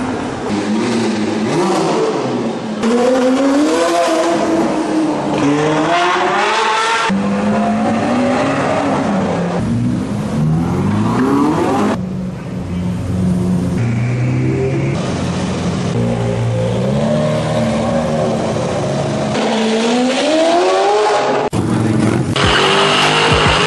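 Supercar engines, among them a Bugatti EB110 and a Lamborghini Aventador, both V12s, revving and accelerating away one after another in short clips cut together, the pitch climbing with each rev and falling back.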